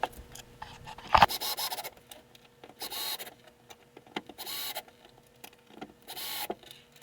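Power drill driving screws into wood in four short bursts, each about half a second, the first starting with a sharp click about a second in.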